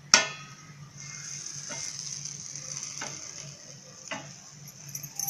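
A stainless-steel lid clanks down onto a tawa and rings briefly, then bread pizzas sizzle softly in butter on the griddle under the lid, a steady high hiss with a few light knocks as the lid is settled.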